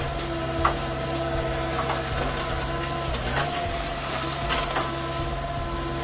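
JCB backhoe loader's diesel engine running steadily under load, heard from inside the cab, with a whine that comes and goes as the backhoe boom and bucket move. A few sharp clanks and knocks come through, the loudest about half a second in.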